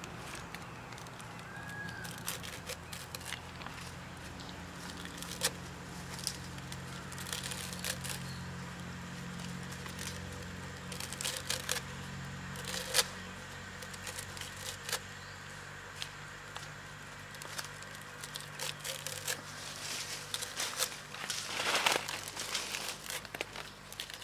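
Knife chopping a bundle of green leaves finely on a cutting board: irregular knocks of the blade in short runs, with leaves rustling and tearing as they are gathered, the busiest run near the end.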